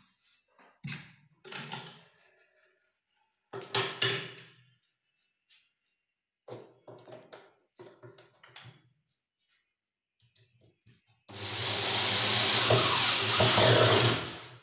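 Kitchen rolling shutter being fitted into its aluminium cabinet frame: scattered knocks and clatters as the parts are handled, then a loud continuous noise for about three seconds near the end.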